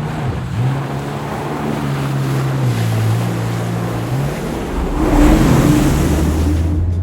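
Jet ski engine running on open water, its drone stepping lower in pitch a few times, with wind buffeting the microphone and water rushing; a louder surge of spray and wind about five seconds in.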